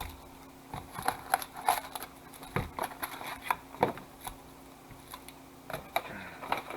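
Trading-card packaging being handled and opened: a string of irregular crinkles, clicks and light taps from cardboard and pack wrappers.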